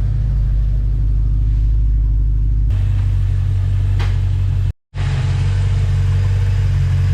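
BMW E92 M3's S65 V8 engine idling with a steady low rumble during the fuel-adaptation reset after new injectors, the sound cutting out briefly about five seconds in.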